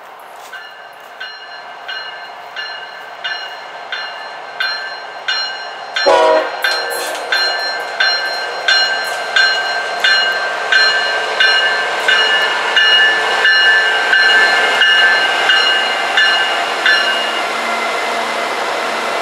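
CSX diesel freight locomotives approaching and passing with the lead unit's bell ringing about one and a half strokes a second, growing louder as the train nears. There is a sudden loud burst about six seconds in. The bell stops near the end, leaving the engines and train running.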